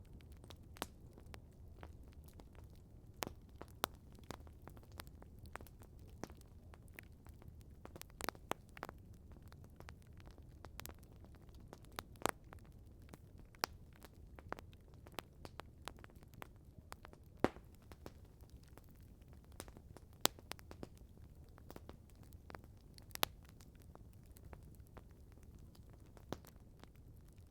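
Wood campfire crackling, with a low rumble under frequent sharp pops and snaps that come irregularly, several a second, a few of them louder.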